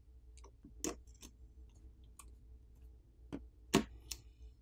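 A handful of short, sharp clicks and taps as a pry tool unsnaps a flex cable connector and coaxial cable ends from a smartphone's subboard, the loudest clicks coming between about three and four seconds in.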